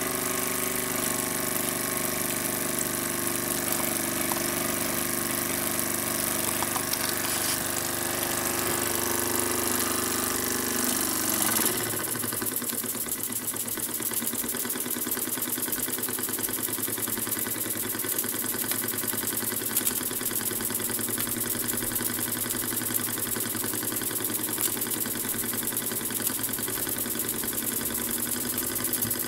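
Small model steam engine, fed from a vertical brass-and-copper boiler, running steadily on its own. About twelve seconds in the sound changes, the steady tones giving way to a rapid, even beat that keeps up to the end.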